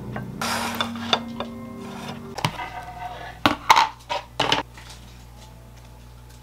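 Metal chopsticks scraping food out of a plastic tub onto a ceramic plate, then a run of sharp clicks and clinks of chopsticks against dishes, loudest between about three and a half and four and a half seconds in.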